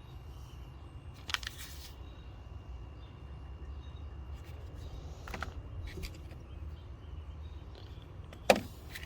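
Small metal tools and screwdriver bits being handled, giving a few scattered clinks and clicks, the loudest near the end, over a steady low background hum.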